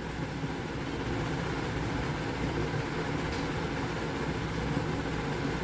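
A steady mechanical hum with a hiss, unchanging throughout.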